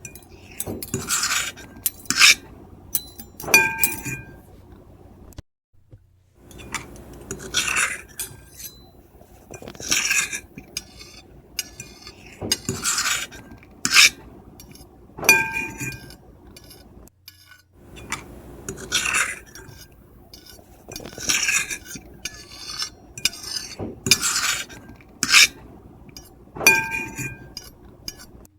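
Metal fork and knife scraping and clinking on a plate in repeated strokes about every second or two. Every so often a stroke rings out as a clear clink.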